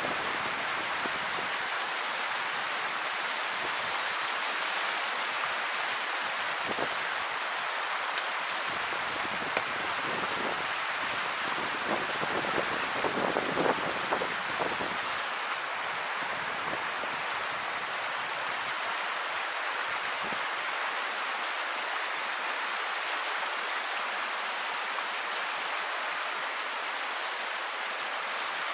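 Shallow river water flowing over a submerged concrete causeway and spilling off its edge in small cascades: a steady rush, a little louder for a few seconds near the middle.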